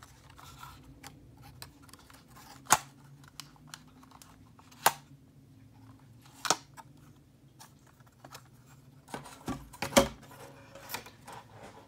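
Plastic arms and propellers of a DJI Mavic 2 Pro drone being folded up by hand: about four sharp clicks and knocks, the loudest near the end, over a faint steady low hum.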